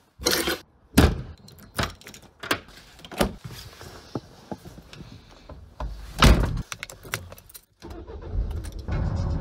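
Car keys jangling and clicking as they are picked up and handled, then a car door shutting with a heavy thump about six seconds in. Near the end the ignition key is turned and the small car's engine starts and settles into a steady idle.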